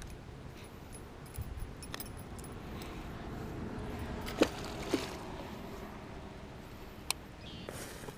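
A few light clicks and metallic clinks from a spinnerbait and its line being handled while a small bass is unhooked, the sharpest click about four and a half seconds in, over a steady low background noise.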